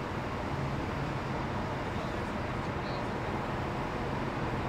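Steady low rumble of idling vehicle engines, with a faint hum that comes and goes.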